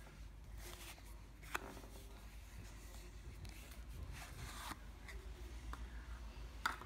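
Cardboard sleeve sliding off a metal Zippo gift tin: papery rubbing and scraping in short strokes, with a sharp click about one and a half seconds in and a louder one near the end.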